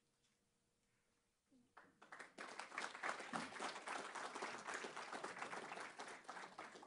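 Audience applauding, starting about two seconds in and fading away near the end.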